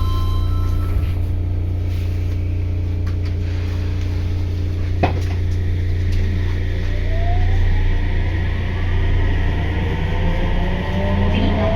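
Sendai Subway 1000N-series train with a steady low hum and one sharp knock about five seconds in. Then its IGBT-VVVF inverter whine begins rising in pitch as the train starts to accelerate.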